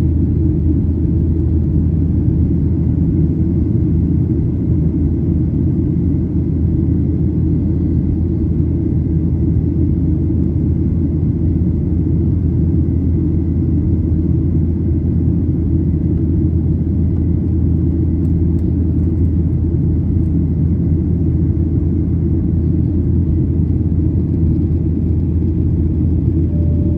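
Boeing 737-800 cabin noise in flight: the steady low rumble of the engines and airflow, unchanging throughout, with a faint steady high whine above it.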